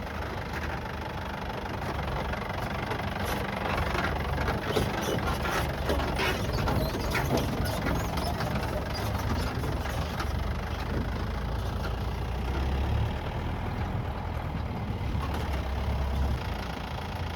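Safari jeep's engine running at low speed on a rough stony track, with a cluster of rattles and knocks from the vehicle jolting over stones a few seconds in.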